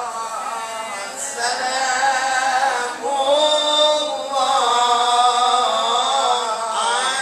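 A male Qur'an reciter chanting in the melodic tilawah style through a microphone, in long drawn-out, ornamented phrases with brief breaks for breath.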